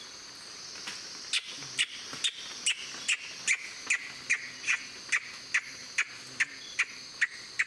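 Rainforest ambience: a steady high insect drone, joined about a second in by an animal calling in a fast, even series of short sharp notes, about two and a half a second.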